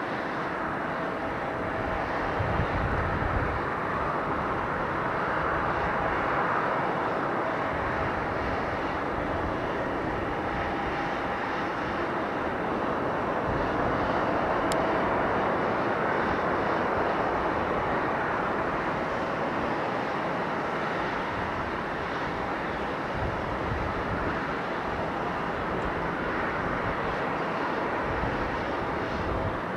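Distant jet engine roar from an Airbus A350-900's Rolls-Royce Trent XWB engines as the airliner rolls out after touchdown and slows to taxi. It is a steady rushing sound that swells and eases a few times, with a faint whine.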